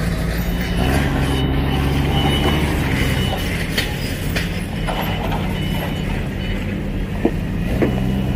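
A large forklift's engine running steadily as it drives. A few sharp clicks come about four seconds in and again near the end.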